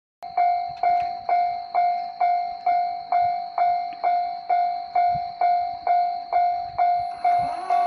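Japanese railway level-crossing warning bell ringing, a ringing electronic ding repeated about twice a second, the signal that a train is approaching. Near the end further steady tones join in.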